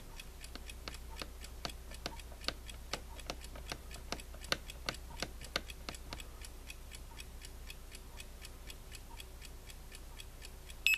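Faint, even ticking, about three clicks a second, while the time on a 1980s Tradition digital alarm clock is advanced with its set button held down. Right at the end the clock's alarm sounds its first high beep.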